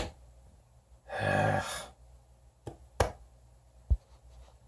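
A man's single short, voiced sigh, followed by a few sharp clicks and a low thump.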